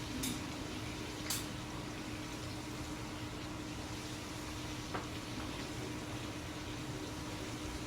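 Home Decorators Collection Grayton ceiling fan coasting down after being switched off from high, its wooden blades giving a steady airy whoosh under a faint low tone. A few faint ticks come through, about a second apart near the start and once more midway.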